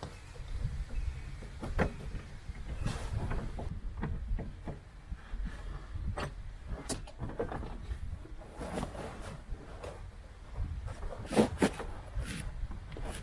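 Hands and tools working a seatbelt anchor bolt through car floor carpet and padding: scattered clicks, knocks and rustles, with a sharper pair of clinks about eleven and a half seconds in, over a low steady rumble.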